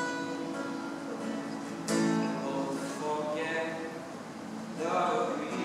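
Acoustic guitar played live: strummed chords left ringing, with a sharp fresh strum about two seconds in and another softer one near the end.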